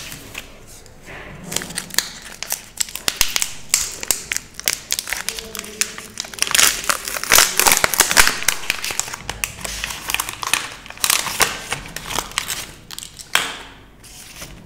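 Plastic wrapper of a Cadbury Crispello chocolate bar crinkling and tearing as it is pulled open by hand, a dense run of crackles that is busiest in the middle.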